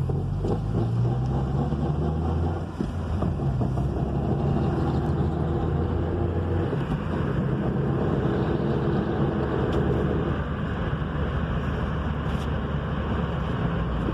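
Manual-transmission vehicle pulling away and accelerating in gear, with the engine running under load over a rough crunching noise that comes only when accelerating in gear, not when downshifting. There is a brief dip in the engine sound about two and a half seconds in.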